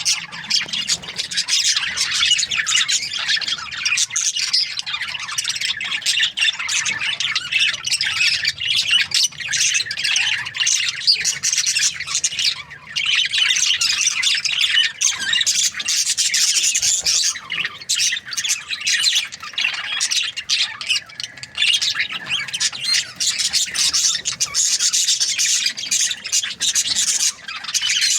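Budgerigars chirping and chattering continuously, a dense stream of high, scratchy calls with a brief lull about halfway through.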